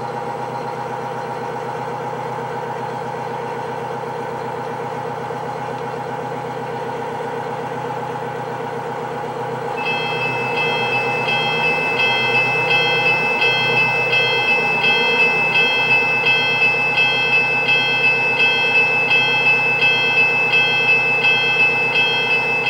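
A steady mechanical hum runs throughout. About ten seconds in, a model railroad crossing signal's bell starts ringing at about two strokes a second, marking the crossing as activated for an approaching train.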